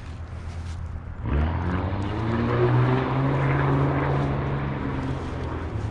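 A motor engine's steady drone comes in about a second in, swells, and then slowly fades, like a vehicle passing by.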